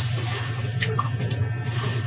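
Background music, with a few short crackles about a second in.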